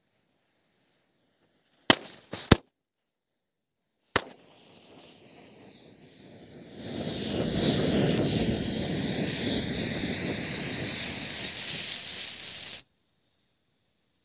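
Firecrackers going off: two sharp bangs close together about two seconds in and a third about four seconds in. Then a firework spraying sparks with a steady hiss, louder from about seven seconds in, that cuts off abruptly near the end.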